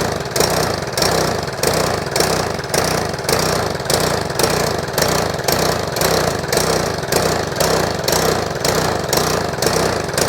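Troy-Bilt lawn mower's small single-cylinder four-stroke engine running at a rough idle just after starting, its level rising and falling about twice a second. The engine is still running rough after a valve clearance adjustment.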